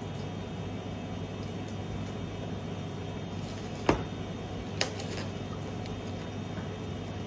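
Steady mechanical hum of kitchen equipment, with two sharp clicks about a second apart near the middle.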